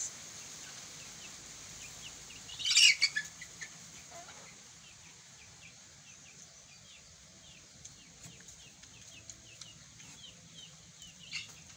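Birds chirping: a loud, brief flurry about three seconds in, then a long run of faint, quick, repeated chirps over a steady high hiss.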